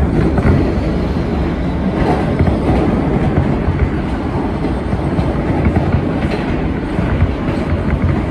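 New York City Subway R160B train running at speed between stations, heard from aboard: a steady low rumble of steel wheels on the rails with faint clicks over the track.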